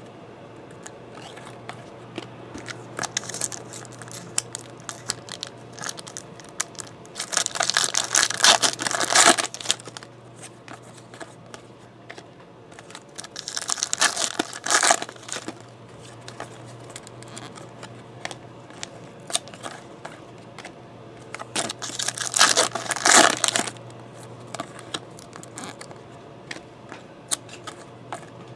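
Foil wrappers of Topps Chrome baseball card packs being torn open and crinkled. The crackling comes in three bursts several seconds apart, with quieter card handling between.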